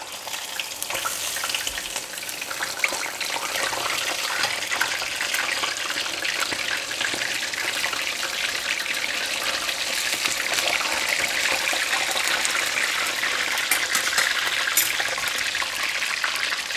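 Whole sea bass deep-frying in hot oil in a stainless steel pan: a steady, dense sizzle full of fine crackles, getting a little louder over the first few seconds as the freshly turned fish bubbles hard.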